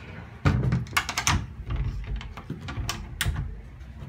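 Cabinet door being shut and its chrome barrel-bolt latch worked: a run of sharp clicks and knocks, with a loud knock about half a second in and a quick cluster of clicks around a second in.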